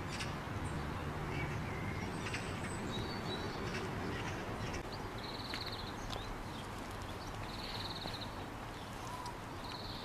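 Birds calling outdoors over a steady rush of wind. A short buzzy trill comes three times, about two seconds apart, in the second half, with scattered brief chirps before it.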